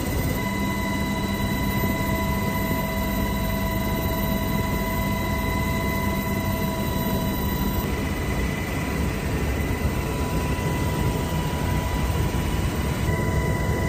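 Steady cabin noise of an Army helicopter in flight, heard from inside with the side door open: a constant rotor and engine drone with several steady whining tones. About eight seconds in the tones shift and some drop out.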